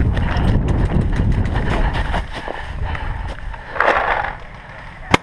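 Running footsteps crunching through dry leaves, with heavy wind rumble on a head-mounted camera's microphone; a short louder rustle comes about four seconds in as the runner reaches cover. Right at the end a paintball marker fires its first sharp shot.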